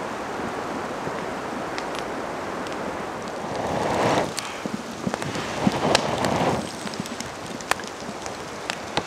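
Steady wind hiss, then close handling noise: two louder rustling swells of about a second each and scattered sharp clicks and snaps.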